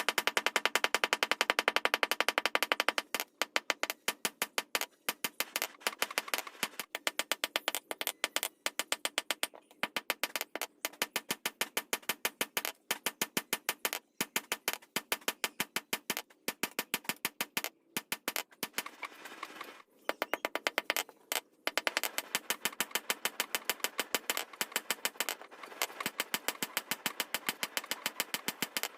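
Rapid, regular hammer blows on metal, several a second, broken by a few short pauses; the first few seconds ring with a metallic tone.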